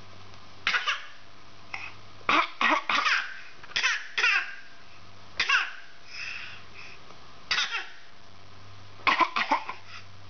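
A baby making a string of short, deliberate little coughs mixed with babbling, as if talking with coughs: about eight brief bursts a second or so apart.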